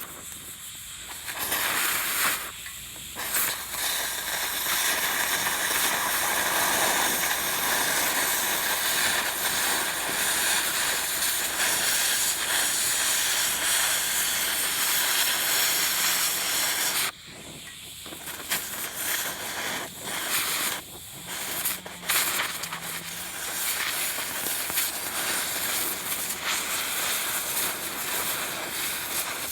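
A steady hissing noise that stops briefly a few times.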